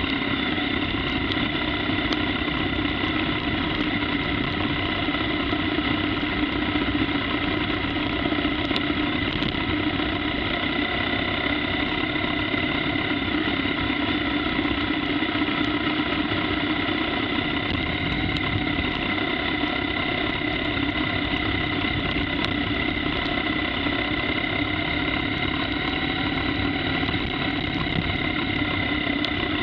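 BMW R1200GS Adventure's boxer-twin engine running at a steady speed while the motorcycle is ridden along a wet gravel road.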